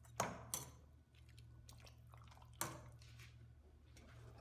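Cabbage leaves being handled in a pot of hot water: a few sharp drips and small splashes, three of them louder, over a steady low hum.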